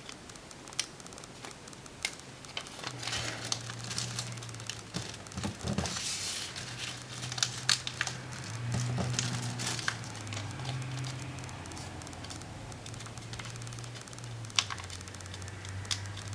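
Origami paper rustling and crinkling as it is folded and creased by hand, with scattered sharp crackles of the paper and a low steady hum underneath.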